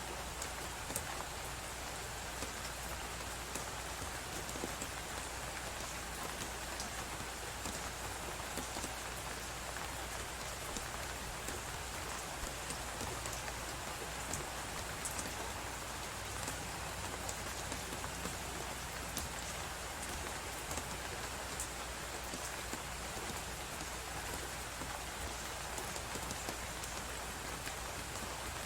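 Fireplace crackling with many small sharp pops and snaps over a steady hiss of blizzard wind and a constant low rumble.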